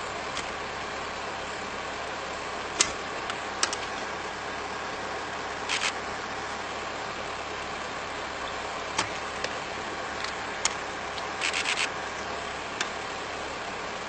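A vehicle engine idling steadily, broken by scattered sharp knocks and cracks as an elephant presses its weight down on a sedan's body. The loudest knock comes about three seconds in, and a quick run of clicks follows near the end.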